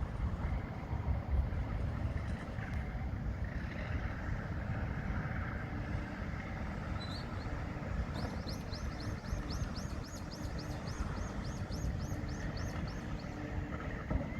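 Heavy diesel machinery running with a steady low rumble. About halfway through, a run of short, high, rising chirps joins it, about four a second, for some five seconds.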